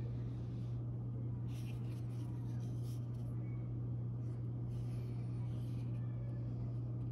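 A steady low hum with two short scratchy rubs, about a second and a half in and again about five seconds in, as a cut piece of glued leather is handled.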